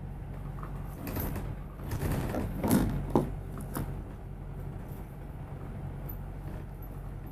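Double-decker bus engine heard from inside the upper deck, a steady low hum as the bus moves along. About two to three seconds in, the rumble grows louder and two sharp knocks sound.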